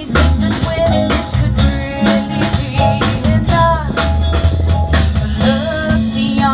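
Live band playing through PA speakers: drum kit with regular beats, electric guitar, keyboard and low bass notes, with a woman singing the melody.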